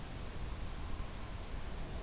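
Steady hiss with a low rumble underneath, with no clear motor tone and no distinct event.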